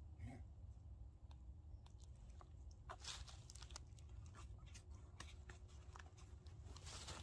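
Faint rustling and small clicks as a canvas backpack is handled, its cord lashing pulled over a wooden cutting board and a strap buckle worked. The clicks are sparse at first and come thicker from about three seconds in.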